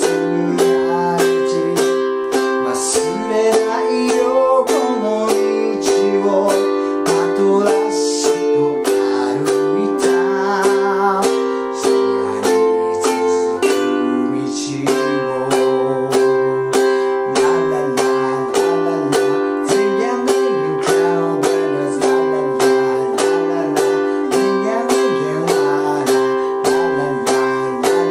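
Ukulele strummed in a steady rhythm through simple C, F and G7 chords, with a man singing the melody along with it.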